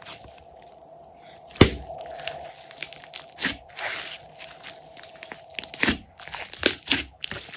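Thick glossy slime being pressed and stretched by hand, with irregular crackling pops and squishes of trapped air. One sharp, loud pop comes about one and a half seconds in.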